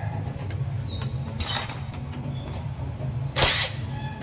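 Engine parts being handled during teardown: light metallic clicks and a short ringing scrape about a second and a half in, then a louder brief rushing noise about three and a half seconds in, over a steady low hum.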